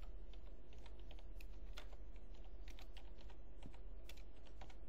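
Typing on a computer keyboard: quick, irregular key clicks over a steady low hum.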